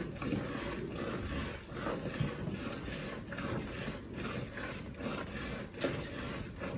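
A Gir cross cow being milked: a run of rhythmic swishing, rasping strokes of milk into a pail, one to two a second.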